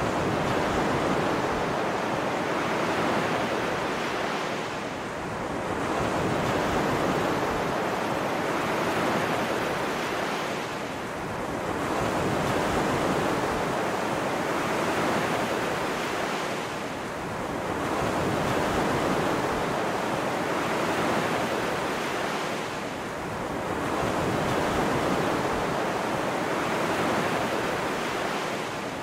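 Ocean surf: waves washing in and drawing back in slow swells, about one every six seconds.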